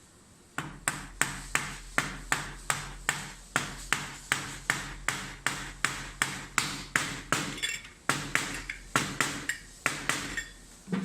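A new bearing is being hammered into place on a CNC router spindle: steady, even metallic taps at about three a second, each with a short ring. The tapping stops shortly before the end.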